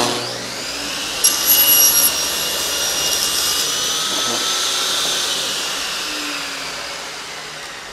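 Craftsman table saw switched on and running up to speed with a whine. About a second in it cuts across the end of a hardwood cutting-board glue-up, the loudest part. It then runs on as its sound slowly dies away toward the end.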